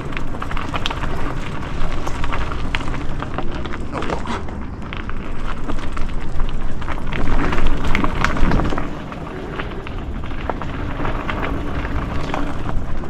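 Mountain bike rolling down a rough dirt trail: a steady rumble of tyres and air with constant clatter and knocks from the bike over bumps, busiest about seven to nine seconds in.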